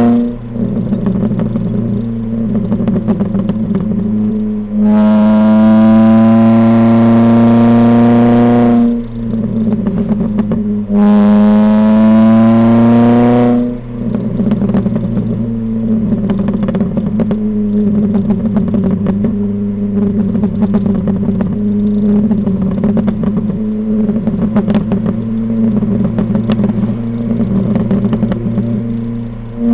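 Ford Fiesta ST150's modified exhaust heard from the tail of the car. The four-cylinder pulls hard twice, each a rising note lasting about four seconds, about five and eleven seconds in. Off the throttle, in between and afterwards, it runs with a rapid, irregular crackling and popping on the overrun.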